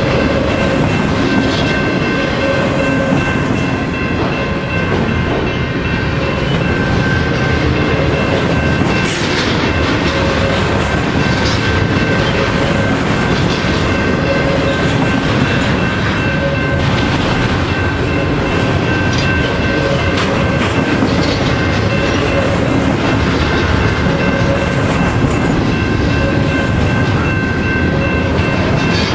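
Double-stack container train's well cars rolling steadily past: a continuous loud rumble of steel wheels on rail with a repeating clickety-clack, and a thin steady high-pitched whine over it.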